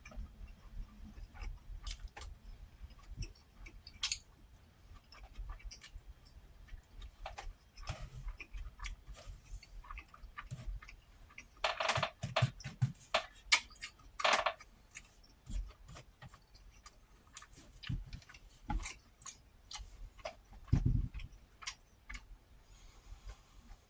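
Close-up chewing and wet mouth sounds of someone eating fried fish, fried eggs and rice, with many small irregular clicks and a few louder smacks about halfway through.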